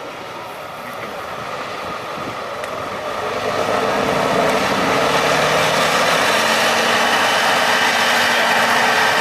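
Tatra 813 trial truck's diesel engine working under load on a steep slope, growing louder over the first four or five seconds and then running steadily.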